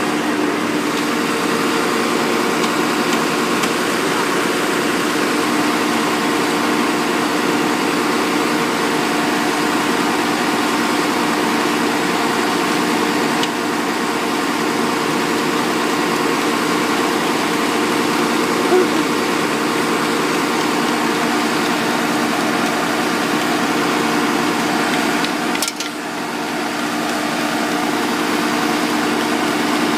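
A heavy road-paving truck's engine idling steadily close by: an even, unchanging hum with a few fixed tones and no revving.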